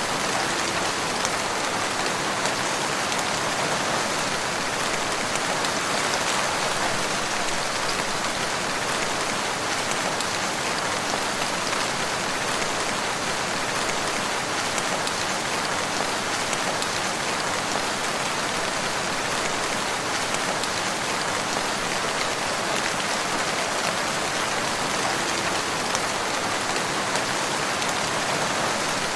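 Steady rain falling, an even hiss of drops on a surface with fine patter and no change in intensity.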